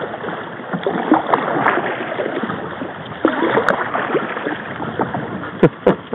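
Canoe paddling on a river: water splashing and sloshing as paddles dip and pull, with two sharp knocks near the end.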